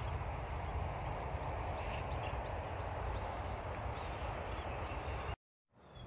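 Steady outdoor background noise, heaviest in the low end, with a few faint, short, high chirps like small birds. It cuts out abruptly about five and a half seconds in and comes back much quieter.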